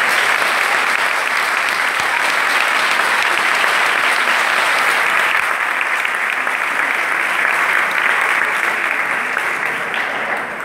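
An auditorium audience applauding steadily, the clapping easing off near the end.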